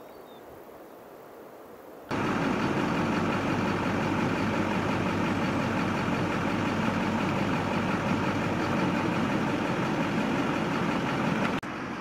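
Faint outdoor ambience, then about two seconds in an abrupt cut to a vehicle engine idling steadily, which runs until another cut near the end.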